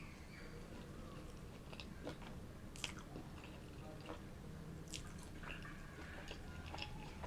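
A person chewing and biting food, with moist mouth sounds and scattered small crisp clicks, a few sharper ones about two, three and five seconds in.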